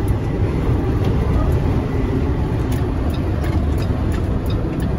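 Steady low rumble of engine and road noise inside the cab of a 2019 International Prostar semi truck driving at highway speed.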